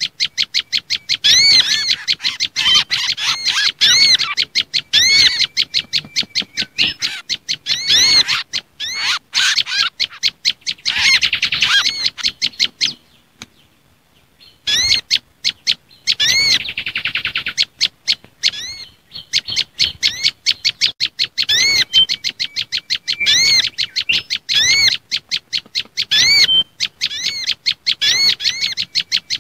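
Bird-trapping lure track of olive-backed tailorbird (prenjak lumut) calls combined with mangrove whistler and sunbird calls: loud, rapid strings of sharp, repeated chirping notes, the tailorbird calls sounding agitated as if the bird were caught. The calls break off briefly about thirteen seconds in, and a short buzzing trill follows a few seconds later.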